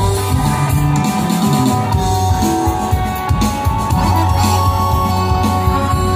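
A live band plays music led by guitar, with bass notes and a drum kit keeping the beat.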